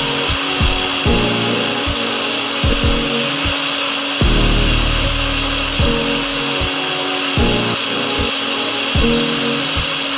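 Borosil Nutrifresh blender's 400 W motor running continuously, blending a thick liquid in its jar: a steady high whine.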